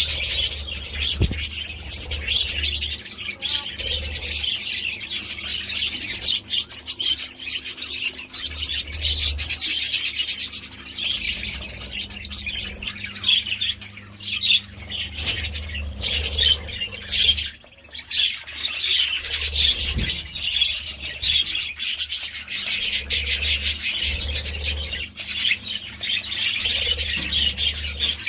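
A flock of budgerigars chattering: many birds chirping and warbling at once without a break, with intermittent low rumbles underneath.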